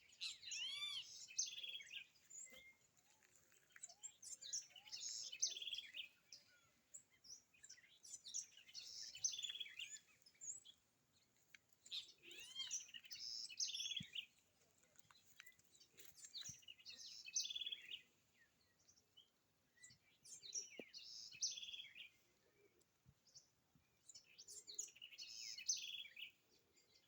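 A songbird singing the same short phrase of rapid, high chirping notes over and over, each phrase lasting about two seconds and coming back roughly every four seconds, with short pauses between.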